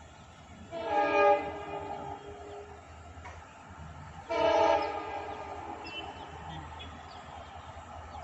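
Horn of an approaching WDG4 diesel locomotive: two loud multi-note blasts, about a second in and again about three seconds later, each fading away briefly.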